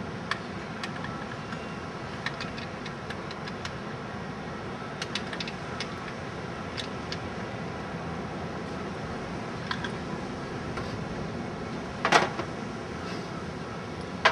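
Chevrolet Monte Carlo SS engine with a Holley 600 carburetor running steadily, with small clicks of hands working the throttle linkage and one sharp knock about twelve seconds in.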